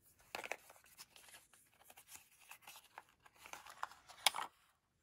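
Paper and cardboard packaging being handled, rustling and crinkling with scattered small clicks and taps; the loudest crackle comes about four seconds in.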